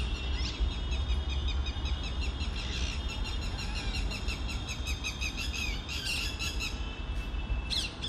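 Rose-ringed parakeet calling: a fast run of short, high-pitched repeated notes that thins out near the end, over a low rumble.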